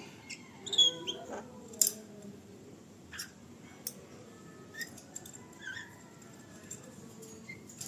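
Javan myna (jalak kebo) giving short squeaky calls and chirps at irregular intervals, with a few sharp clicks, the loudest two about one and two seconds in.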